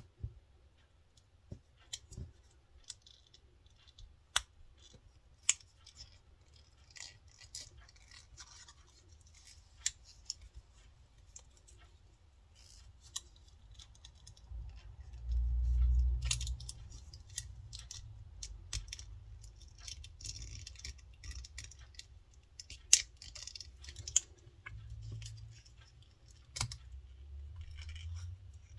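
Small handling sounds of a metal binder clip and its wire handles being fitted into a leather cover: scattered sharp metallic clicks and light scratching and rustling, with a dull low bump about halfway through.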